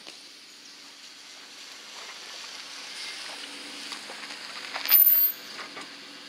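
Jeep Wrangler driving slowly up across grass and pulling to a stop close by, its engine running, the sound growing louder as it nears. About five seconds in there is a sudden loud noise lasting about half a second as it stops.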